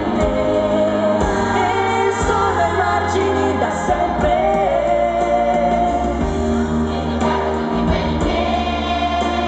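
Children's choir singing over instrumental accompaniment with a steady bass line.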